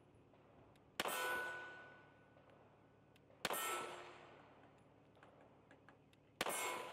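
Three shots from a Ruger LCP Max .380 pocket pistol, about two and a half to three seconds apart, each followed by a ringing clang that dies away over about a second, as from a hit steel target.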